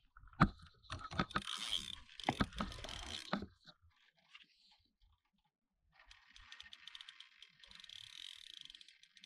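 Several heavy knocks and thuds in the first few seconds. Then, from about six seconds in, a steady run of fast mechanical clicking.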